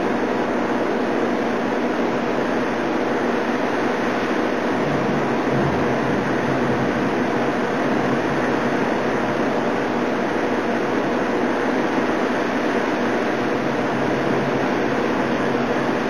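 Heavy thunderstorm downpour: rain pouring down with high wind, a loud, steady, even hiss with no thunderclap.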